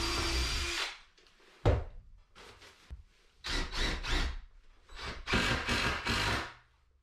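Cordless drill driving screws into a softwood timber frame in bursts: one run stops about a second in, and two longer runs follow in the second half. Between them comes a single sharp wooden knock, the loudest sound.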